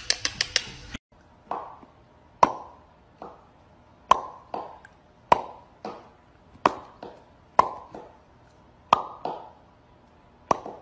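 A quick run of clicks that cuts off about a second in, then a series of sharp pops, each with a short hollow ringing tone, coming irregularly about once a second and sometimes in quick pairs.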